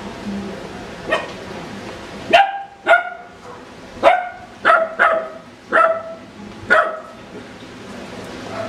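Small dog barking repeatedly: about eight sharp, irregularly spaced barks, starting about a second in.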